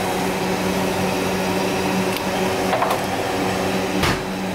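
Steady low hum of a running motor, with a few light clicks and a single knock about four seconds in.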